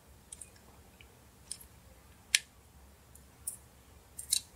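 Scattered light clicks and ticks of a small flathead screwdriver prying at a part inside an LG V20 phone's frame. The sharpest click comes a little over two seconds in, with a few more close together near the end.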